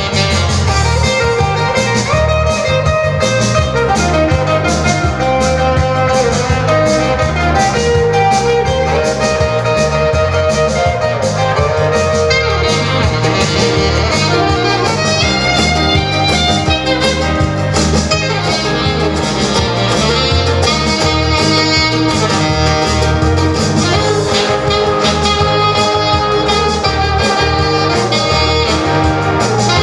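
Background music with a steady beat, guitar and a saxophone-like horn line.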